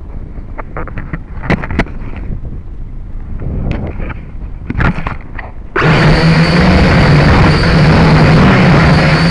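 Scattered knocks and bumps from the drone being handled, then about six seconds in the quadcopter's electric motors and propellers start abruptly and run with a loud, steady whirring buzz and a thin high whine.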